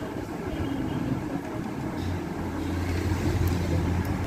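A steady low mechanical rumble, with a deeper steady hum setting in about halfway through.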